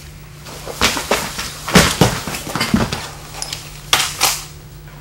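A man being taken down onto the floor in a baton restraint hold: a run of thuds and scuffling knocks, the loudest about two seconds in, with two more sharp knocks near the end, over a faint steady low hum.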